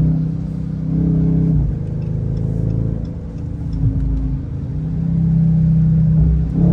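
Dodge HEMI V8 car engine under way. It holds steady revs, eases off about a second and a half in, picks up again, and climbs in revs near the end.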